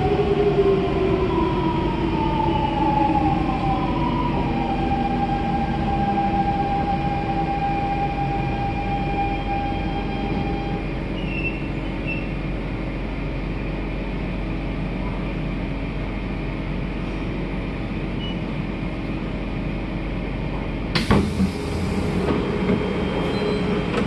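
An SMRT C651 metro train's traction motors whine and fall in pitch as it brakes into a station and comes to a stop, heard from inside the carriage. Near the end comes a sudden burst of noise as the doors open.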